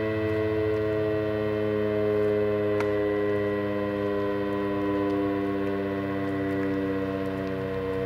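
Federal Signal Thunderbeam electronic outdoor warning siren sounding during a test: a loud, steady, many-toned note that sags slightly in pitch, its loudness swelling and fading gently as the rotating head turns.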